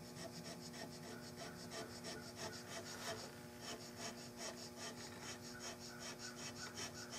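Hand checkering cutter scraping short, quick strokes into a walnut gunstock, faint and rhythmic at about five strokes a second.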